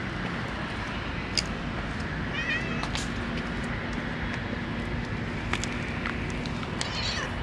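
Cat meowing: a short wavering meow about two seconds in and another near the end, over steady outdoor background noise with a few sharp clicks.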